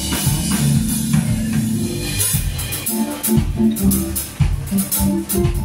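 Live band playing an instrumental passage: drum kit strokes over keyboard and guitar.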